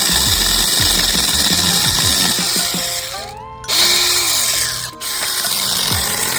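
Mini electric chainsaw running in bursts with a high whine. Its pitch rises as the motor spins up about three seconds in, and it stops briefly near five seconds before running again.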